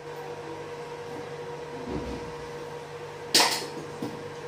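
Kitchen work sounds over a steady background hum: a soft thud near the middle, then a sharp clatter of kitchenware about three seconds in and a lighter knock just after.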